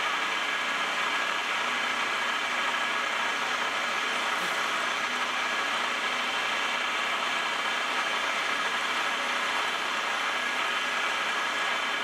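A milling machine spindle runs at high speed while a small end mill cuts a keyway groove in a steel shaft. It is a steady whine with several held high tones over an even hiss.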